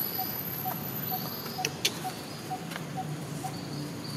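Outdoor ambience: a short, even note repeating about twice a second, with insect-like buzzing that comes and goes, and a couple of sharp clicks a little before the middle.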